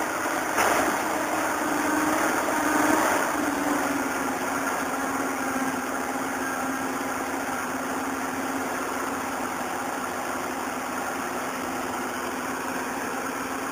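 Caterpillar tracked hydraulic excavator's diesel engine running steadily as the boom and bucket work, a little louder in the first few seconds with its pitch dipping slightly about three seconds in.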